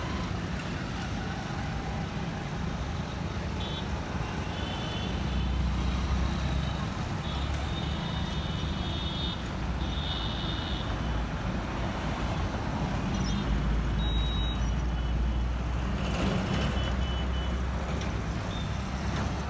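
City road traffic: cars and motorcycles passing with a steady low engine and tyre rumble that swells as vehicles go by, and a high-pitched tone that comes and goes several times.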